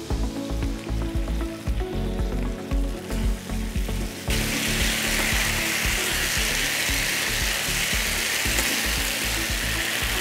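Background music, then a little over four seconds in a loud, steady sizzle starts suddenly: chicken pieces frying in a hot pan as they are stirred with a spatula.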